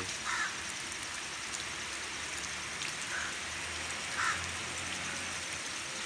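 Light rain falling steadily, an even hiss, with a few short bird calls over it.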